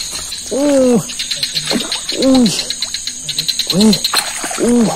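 Four hooting calls, each rising and then falling in pitch over about half a second, spaced about a second and a half apart, over a steady fast-pulsing chorus of night insects.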